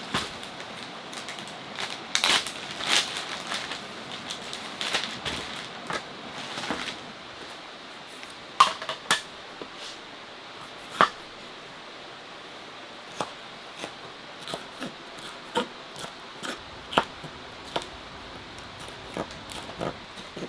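Food-prep handling noises over a steady background hiss: rustling and handling in the first several seconds, then a kitchen knife knocking sharply on a cutting board at irregular intervals, roughly once a second, as bell pepper is cut.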